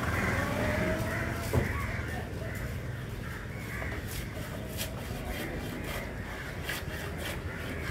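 A knife cutting into the skin and flesh of a large tuna on a wooden block, heard as short crisp scrapes and ticks in the second half, with a single sharp knock about one and a half seconds in. Birds call repeatedly in the background.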